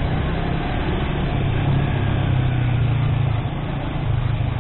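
Motorcycle engine running steadily at low revs, crawling in stop-and-go traffic, with the noise of the surrounding traffic.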